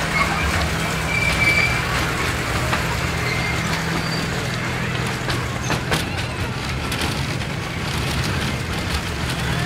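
Ride noise of a miniature joy train carrying the listener: a steady low engine hum under wheel and track rumble, with a few sharp clicks around six seconds in.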